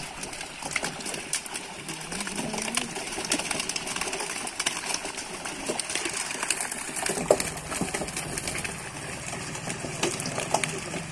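Water splashing and slapping in many small irregular bursts as pangasius catfish crowded in a seine net thrash at the surface of a pond.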